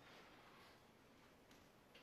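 Near silence: room tone, with a couple of faint, soft taps near the end.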